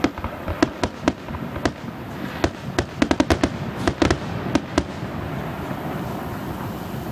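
Fireworks going off: sharp bangs at irregular intervals, then a rapid flurry of cracks about three to five seconds in. The bangs stop about five seconds in, leaving a steady background noise.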